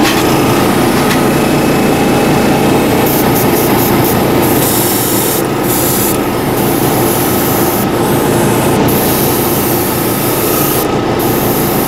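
Airbrush spraying water-thinned acrylic hobby paint, its air hiss starting and stopping several times as the trigger is worked, over a steady machine drone from the air supply.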